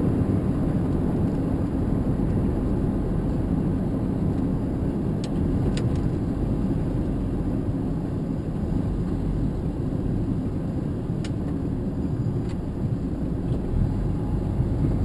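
Steady low rumble of a vehicle's engine and road noise, heard from inside the vehicle while driving, with a few faint clicks.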